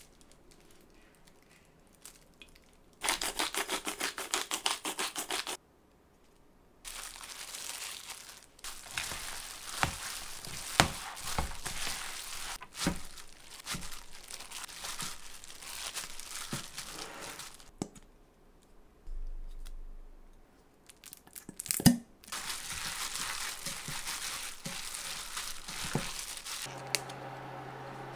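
Kitchen food-preparation handling sounds: rustling, crinkling and tearing with scattered sharp clicks of utensils, in several separate stretches, one a quick run of strokes a few seconds in. A steady hum starts near the end.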